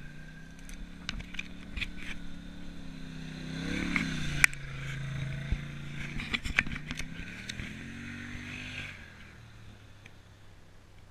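Quad bike (ATV) engines driving past close by on a dirt track: the engine note climbs as a quad nears, is loudest about four and a half seconds in and drops as it passes, then rises again before fading away about nine seconds in. Sharp clicks are scattered through the pass.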